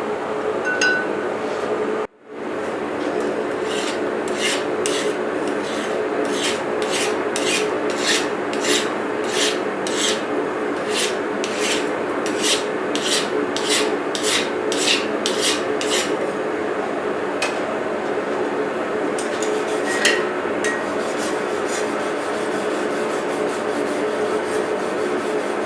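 Hand file rasping along steel in rhythmic strokes, about two a second, over a steady machine hum; the sound drops out briefly near the start.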